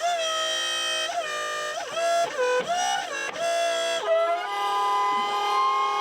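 Background music: a melody of held notes that step and slide in pitch, starting abruptly.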